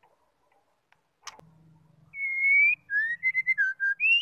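White-rumped shama singing a short phrase of clear whistled notes: a long, slightly rising whistle about halfway in, then a quick run of shorter notes and a final rising note near the end. A single sharp click comes a little after a second in.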